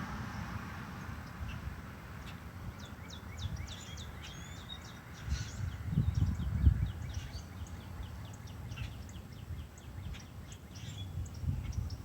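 Outdoor ambience: small birds chirping in rapid high series, with low rumbles of wind or handling on the microphone that swell around the middle.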